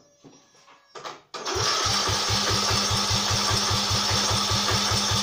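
Briggs & Stratton 11.5 hp single-cylinder mower engine being cranked over by its starter without firing, its spark plug lead left disconnected. After a few faint knocks, the cranking starts suddenly about a second and a half in, a steady whir with an even beat of about seven strokes a second.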